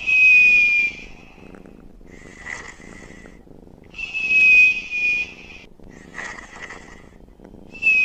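Cartoon-style sleeping sound effect: a purring snore on the in-breath, then a whistle on the out-breath that falls slightly in pitch. The cycle repeats about every four seconds, and the whistles are the loudest part.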